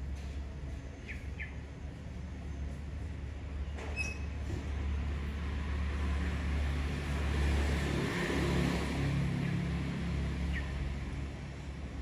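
A low engine rumble that grows to its loudest a little past the middle and then eases off, with a sharp click about four seconds in and a few short high chirps.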